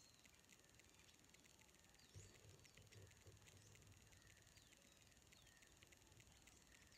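Faint rainforest ambience, close to silence: a steady high insect-like hiss with rapid ticking and a few short high chirps. A soft low thump comes about two seconds in.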